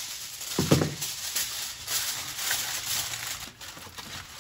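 Aluminium foil crinkling and rustling as it is folded around fish fillets, with a dull thump a little under a second in.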